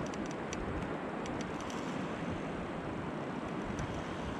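Steady rush of wind on the microphone and sea water around a small fishing boat, with a few faint ticks in the first couple of seconds.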